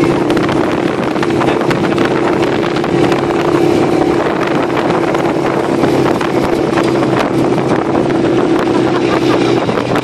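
Small street motorcycle engine running steadily at low speed as the bike rolls past close by, with wind buffeting the microphone.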